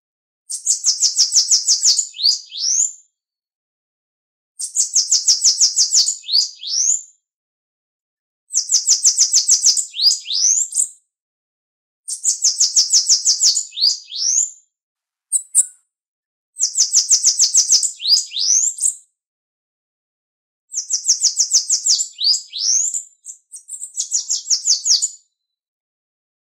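Bananaquit (Coereba flaveola) singing: six high, fast trilled songs about four seconds apart, each a rapid run of ticking notes that ends in a few quick rising notes, with silence between songs.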